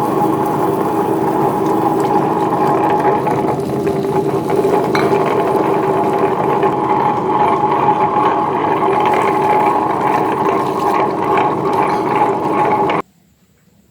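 A small electric motor runs steadily with a constant whine, then switches off abruptly about thirteen seconds in.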